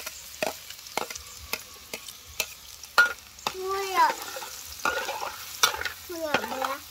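A metal spatula scrapes and clinks against a steel wok about twice a second as food is stir-fried, with oil sizzling underneath. A brief pitched voice-like call cuts in twice, around four and six seconds in.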